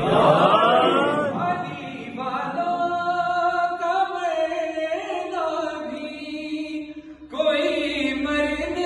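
A noha, a Shia lament, chanted by a male reciter with no instruments, in long held, wavering notes, with other men's voices joining. The chant breaks off briefly about seven seconds in, then resumes.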